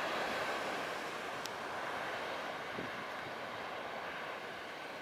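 Jet engines of an AirAsia Airbus A320-family airliner rolling down the runway: a steady, distant roar that slowly fades, with a brief sharp click about a second and a half in.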